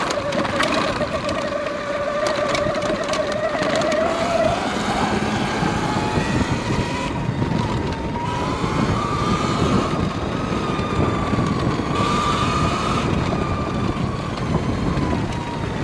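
Sur Ron X electric dirt bike's drivetrain whining while it rides a rough trail, the pitch rising and falling with speed, over the rumble of the tyres and wind buffeting a microphone inside the rider's helmet.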